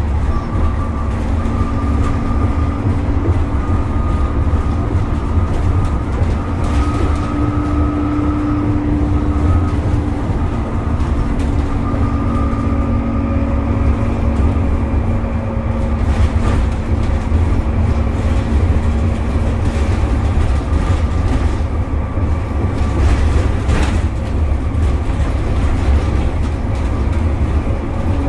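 Dennis Trident double-decker bus with its Cummins ISCe engine, heard from inside the lower deck while under way. There is a steady deep rumble, with a whine from the axles that drifts slowly in pitch with road speed.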